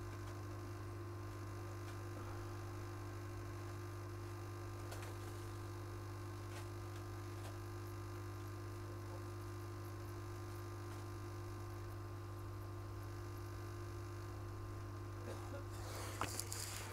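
Steady electrical mains hum from bench equipment, with a few faint clicks and some light handling noises near the end.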